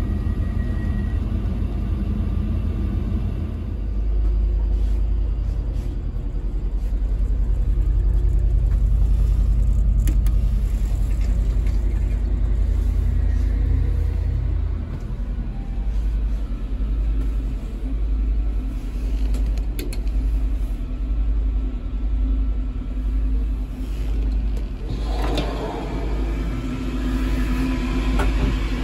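Low, steady rumble of the Class 196 diesel multiple unit's underfloor diesel engine idling, heard inside the carriage, beating slowly about once a second from about halfway on. A louder mid-pitched noise joins near the end.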